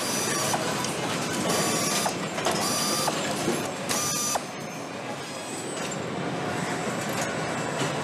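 Power torque tools (nutrunners) on an engine assembly line, spinning up in four short runs of about half a second each in the first half, each with a high whine. After that a steady factory hum remains.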